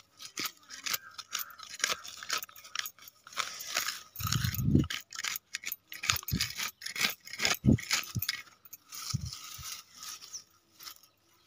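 Dry grass and fallen leaves crackling and rustling, with irregular scrapes and a few dull low thumps about a second or so apart.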